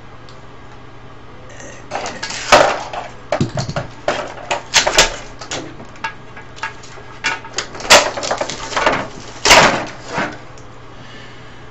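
Irregular clattering and sharp knocks of parts being pulled and handled while a CRT television is stripped for scrap, with a few loud knocks among lighter clicks.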